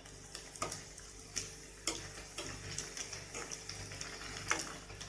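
Poori deep-frying in hot oil, a steady sizzle, with a handful of sharp clicks spread through it.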